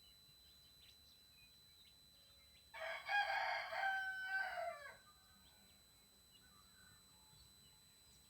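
A rooster crows once, about three seconds in, for about two seconds. Under it runs a steady high-pitched squeal from a TriStar TS-MPPT-60 solar charge controller, a squeal it gives off as it moves between MPPT and absorption charging stages.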